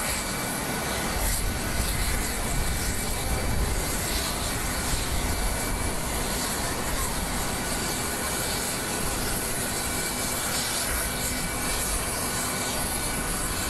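Steady whine of jet aircraft engines, a constant noise with a few high held tones over a low buffeting rumble of wind on the microphone.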